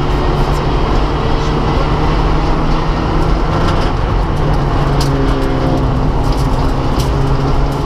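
Rally car engine running hard at fairly steady revs, heard from inside the cabin over loud tyre and road noise, with a few sharp ticks.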